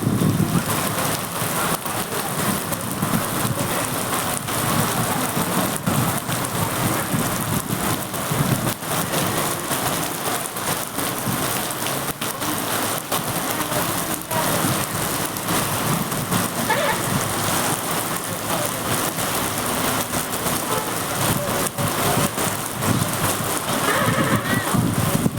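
Steady heavy rain, with many sharp drop hits close by.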